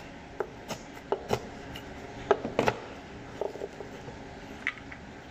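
A knife chopping deep-fried duck on a plastic cutting board: about ten sharp, irregular chops, the loudest around two and a half seconds in.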